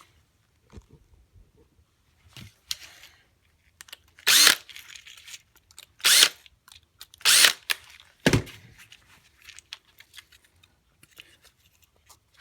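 Cordless drill driver run in three short bursts, backing out the three terminal screws of a replacement electrical plug, followed by a sharp knock.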